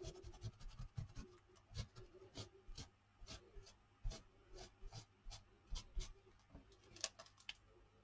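Faint, irregular dabbing and scratching of a paint applicator pressed through a plastic stencil onto paper, a few light taps a second.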